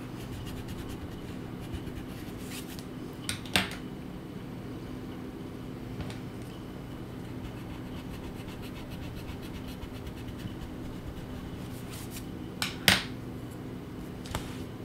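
Pencil scratching and rubbing on paper as a butterfly is sketched, over a steady low hum. Two pairs of short sharp taps cut through, one about three and a half seconds in and a louder pair near the end.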